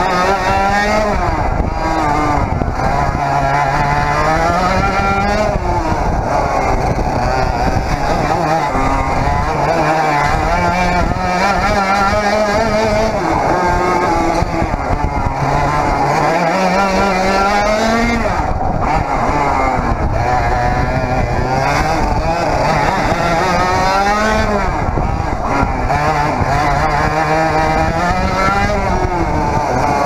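A 100cc Parilla reed-valve two-stroke kart engine heard onboard at full song, its pitch climbing in long rises as it accelerates and dropping away as it slows, again and again round the lap.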